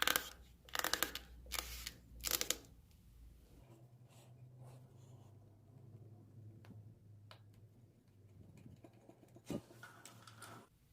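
Hands handling gear: four short scraping, rustling noises in the first couple of seconds, then a faint low hum with a single click and one more short scrape near the end.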